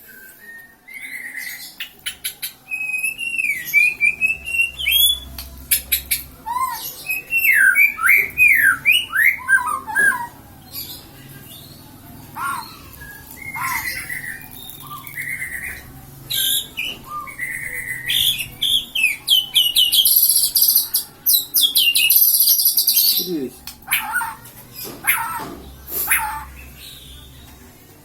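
A small songbird calling and singing in varied phrases: quick sliding and rising chirps, rapid clicky trills and some high, dense twittering, broken by short pauses.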